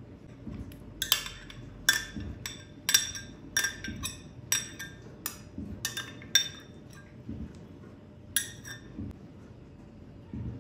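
A utensil clinking against glass bowls: a dozen or so sharp, ringing taps and knocks in an uneven run, while yogurt and mayonnaise are scooped and scraped into a glass mixing bowl. The taps stop near the end.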